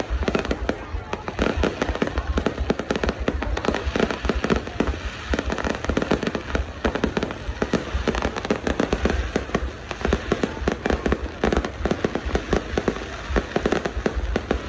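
A fireworks display going off in a dense, continuous barrage of bangs and crackles, with no pause.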